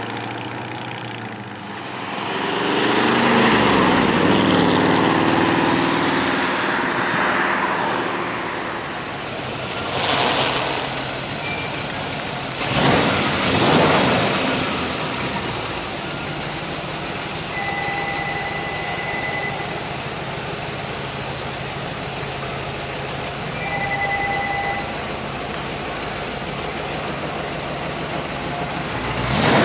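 A vehicle passes on the road in the first several seconds, rising and falling in pitch. After that, the 1962 Chevrolet Impala Super Sport's engine idles steadily, with a couple of short revs around the middle.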